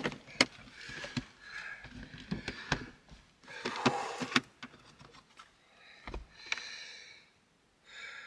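Clear plastic storage bins being handled and rummaged through: a run of clicks and knocks as lids and contents are moved, with short stretches of rattling and shuffling and a low thump about six seconds in.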